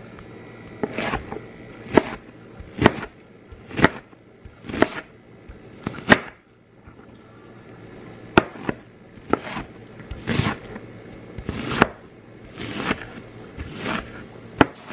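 Chef's knife slicing and dicing an onion on a granite countertop: a crisp cut ending in a knock of the blade on the stone, about once a second, with a short pause about halfway through.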